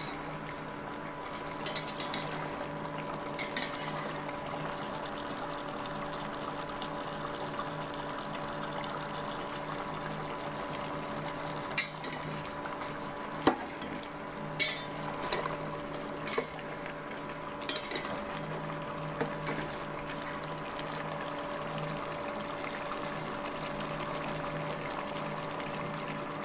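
Chicken curry simmering in a metal pot, with a steady hiss and hum underneath. A metal spatula stirs and scrapes the pot, clinking against its side several times in the middle stretch.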